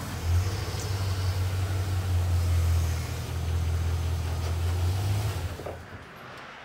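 Chevrolet Silverado pickup's engine running with a steady low hum, then shut off about five and a half seconds in.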